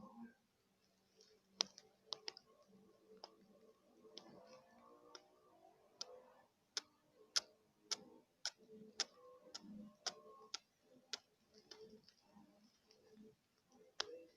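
ASMR mouth sounds made close to the microphone: irregular, sharp wet clicks of tongue and lips, often several a second, with softer mouth noise between them.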